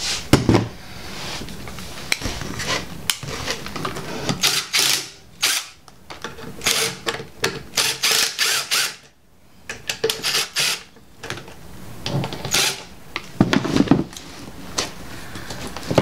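Cordless drill running in short bursts, backing out the retaining bolts of the connectors on a GM engine computer (PCM), mixed with clicks and rustle of the wiring harness being handled.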